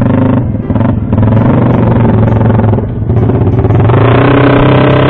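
Motorcycle engines running at low speed, the note dipping briefly a few times. About four seconds in, distorted guitar music comes in over them.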